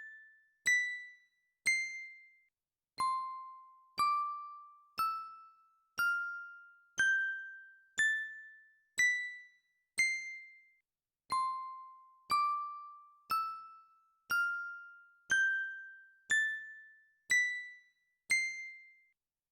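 Single bell notes struck about once a second, each ringing out and dying away. They climb step by step up an eight-note scale, then start again from the bottom note, playing the scale through twice.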